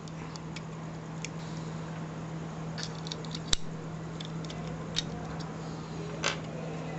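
Plastic Transformers toy parts clicking and rattling as they are handled and a limb is snapped onto the combined figure: scattered sharp clicks, the sharpest about halfway through, over a steady low hum.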